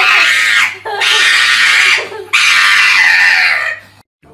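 A dog giving three loud, screechy screaming cries, each about a second long, cut off abruptly near the end.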